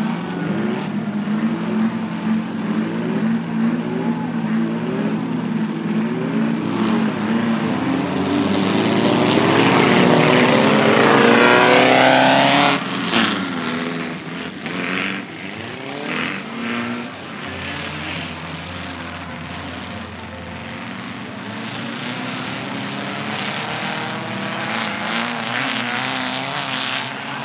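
Volkswagen Baja Bug race cars' engines revving hard, the pitch climbing and dropping again and again as they accelerate and shift. One car comes up loud and close about ten to twelve seconds in and cuts off sharply just before thirteen seconds, after which engines keep revving more faintly.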